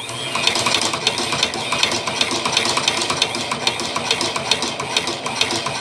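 Hand-crank cobbler sewing machine driven by a domestic sewing-machine motor through a lawnmower pulley, running loud with a steady, rapid ticking clatter from its mechanism.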